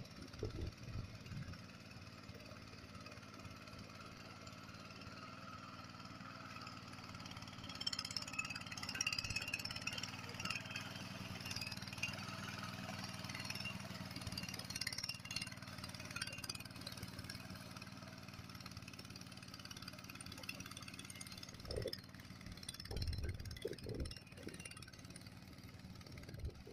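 Small petrol engine of a walk-behind rotary power tiller running steadily while its tines churn a flooded, muddy paddy field. It grows louder and rougher about eight seconds in as the machine works close by, and a few low thumps come near the end.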